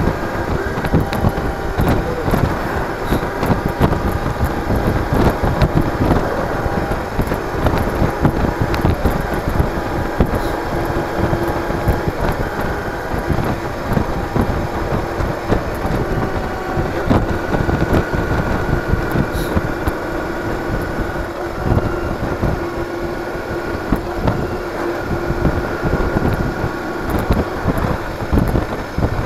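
Cruiser motorcycle engine running steadily while riding at road speed, with wind rushing past the recorder.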